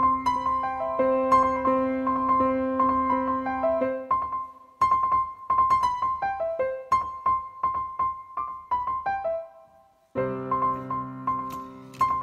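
Background piano music: a gentle melody of single notes over low held chords. The low chords drop out about four seconds in, and the music breaks off briefly near the end before the fuller sound starts again.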